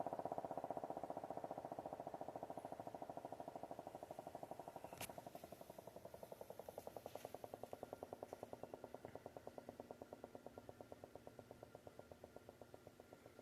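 3D-printed three-port low-pitch siren, its intake blocked, winding down: the growl fades steadily into a rapid pulsing flutter as the rotor slows. A single sharp click comes about five seconds in.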